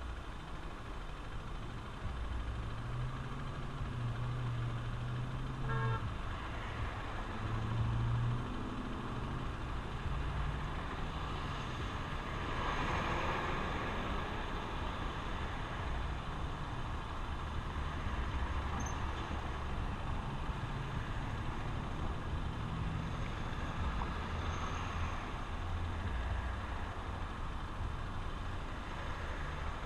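Honda XR150L's single-cylinder engine running as the motorcycle rides along, under steady wind and road noise. A brief horn toot comes about six seconds in, and a swell of traffic or wind noise builds around the middle.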